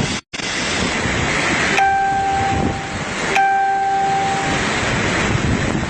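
Strong storm wind buffeting the microphone in a steady rush. Two long, steady horn-like tones sound about a second and a half apart, a little under two seconds in and again about three and a half seconds in. The sound cuts out briefly just after the start.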